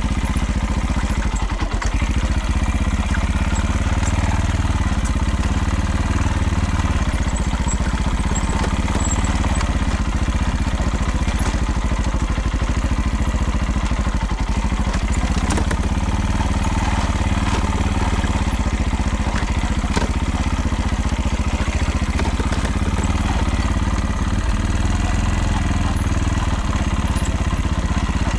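Motorcycle engine running steadily, with a constant rattle whose cause the rider could not find.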